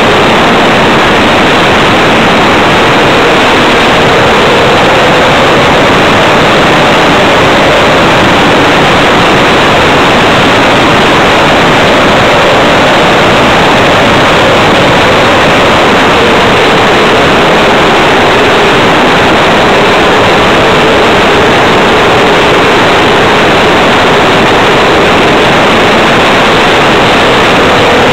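RC Tiger Moth model biplane in flight, its motor and propeller heard from a camera on board: a loud, steady rushing noise with a faint tone that slowly sinks in pitch through the middle and rises again near the end.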